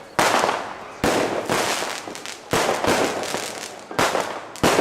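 Fireworks going off: five sudden bangs, each trailing off into a spread of crackling, with smaller crackles in between.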